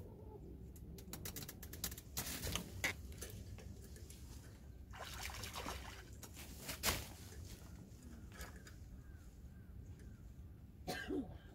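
A carp hooked on a long fishing pole thrashing at the water's surface, splashing in short bursts, the loudest near the middle and again near the end.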